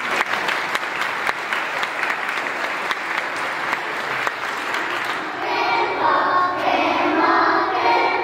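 Audience applauding, then about five seconds in a children's choir starts singing together.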